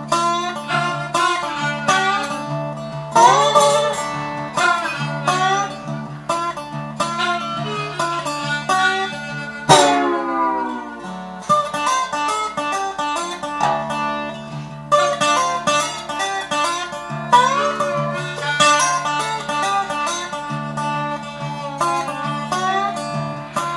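Lap slide resonator guitar and blues harmonica playing a blues instrumental together. The guitar's plucked notes are bent up with the slide about three seconds in, and there is a long slide down in pitch about ten seconds in, over steady held notes.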